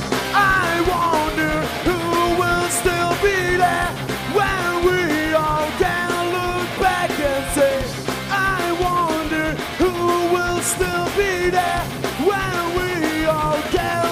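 Punk rock band playing, with a melodic lead line of bent notes over the full band.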